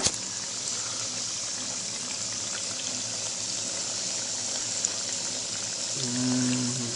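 Cronut dough rounds deep-frying in hot oil: a steady sizzling hiss with a small pop about five seconds in. Near the end a brief low hum, about a second long, sits over the sizzle.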